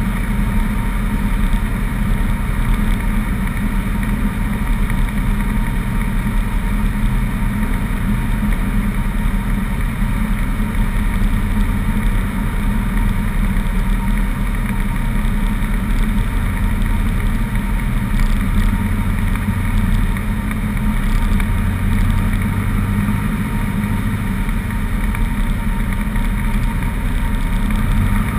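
Cessna 150's Continental O-200 four-cylinder engine and propeller running at a steady drone, heard from inside the cabin with wind rush, during the approach to land.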